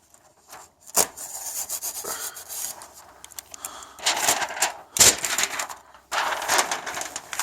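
A saw cutting through wood in uneven rasping stretches, with a sharp knock about five seconds in: the final cut of a window opening in a wooden wall.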